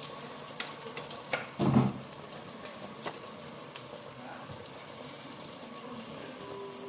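Battered soursop pieces deep-frying in hot oil in a wok: a steady sizzle with scattered small pops. A brief thump about two seconds in is the loudest moment.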